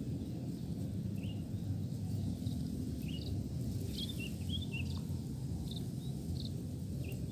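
Rice-field ambience: a steady low background rumble with scattered short, high bird chirps, several in quick runs around the middle.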